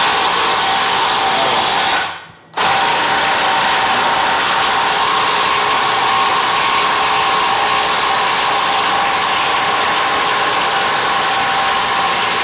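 Cordless impact driver hammering steadily as it drives a long screw into a thick timber beam. It stops briefly about two seconds in, then starts again.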